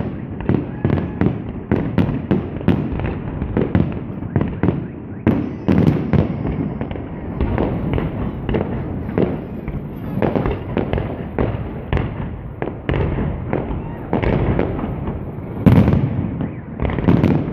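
Fireworks display: a rapid, uneven succession of bangs from shells bursting overhead, with the loudest bursts near the end.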